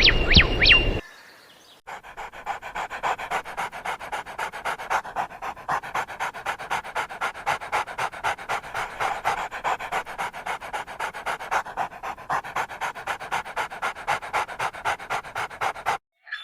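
A dog panting rapidly and steadily, about four to five breaths a second. It is preceded by a short run of sharp whistled chirps that cut off about a second in.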